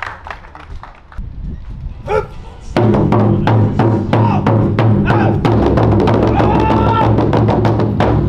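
Ensemble of taiko-style barrel drums struck hard with wooden sticks, starting abruptly about three seconds in: a dense, fast run of strikes over a steady booming ring. Before it, faint voices.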